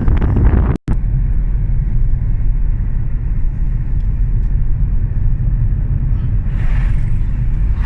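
Steady low rumble of a car driving along a road, heard from inside the moving car, with a split-second dropout about a second in and a brief swell of hiss near the end.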